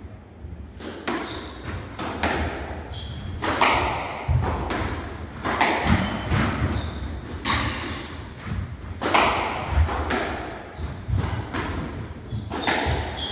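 Squash rally: the rubber squash ball struck by rackets and slapping off the court walls in a rapid series of sharp knocks, with short high squeaks of shoes on the wooden floor.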